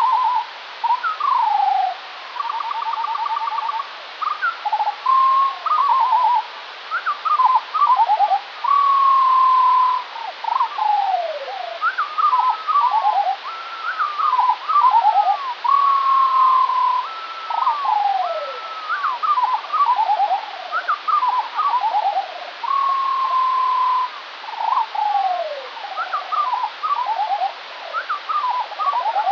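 Skylark song slowed to quarter speed, which drops it two octaves. It comes as an unbroken stream of slow whistled notes: long held tones, falling slurs and rapid pulsed trills follow one another without a pause.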